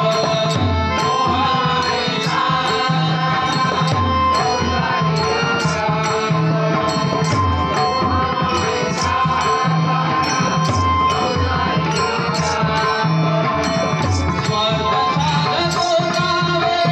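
Marathi bhajan music: a slow abhang sung into a microphone over a barrel drum, with brass hand cymbals (taal) striking steadily on the beat.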